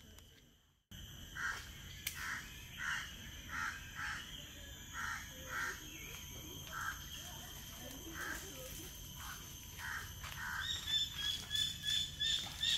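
A bird calling over and over, one call about every two-thirds of a second, over a steady high insect drone. In the last couple of seconds, higher calls come faster and louder.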